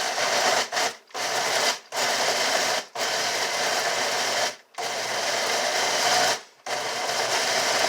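Blender pulsed in a run of short bursts of one to two seconds each, with brief stops between, chopping banana peels and kitchen scraps in water.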